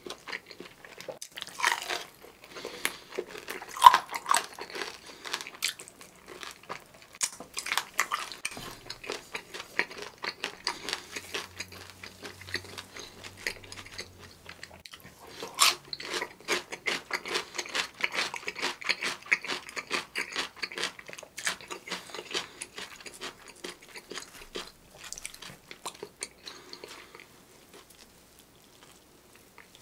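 Close-miked biting and chewing of crispy fried chicken with a seasoned coating: a dense run of crunches and crackles with a few sharper bites. It turns quieter near the end.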